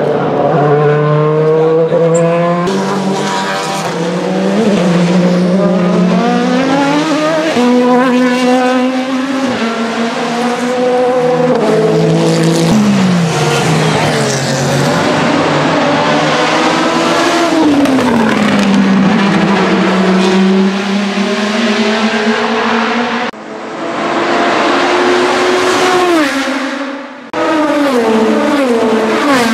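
The Vanwall Vandervell 680 hypercar's Gibson GL458 4.5-litre V8 racing past at speed, its pitch climbing as it accelerates through the gears and falling sharply on downshifts, over several passes. The sound breaks off suddenly twice near the end.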